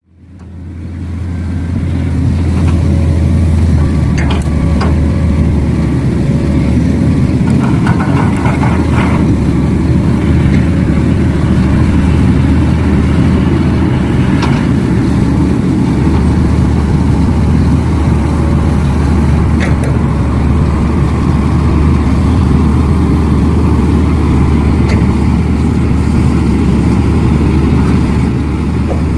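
Heavy diesel engine running steadily with a low drone, fading in over the first couple of seconds, with a few light clicks and knocks on top.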